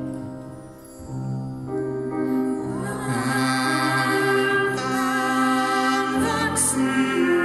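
Small mixed ensemble of brass, wind and percussion playing slow, held notes over a low bass line; singing voices join about three seconds in and the music grows fuller and louder.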